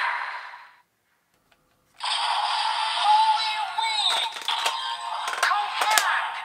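Kamen Rider Revice Two-Sidriver toy belt playing its electronic transformation audio: after about a second of silence, music starts and a synthesized voice calls "Holy Wing!" and then "Confirmed!", with several sharp clicks in the effects.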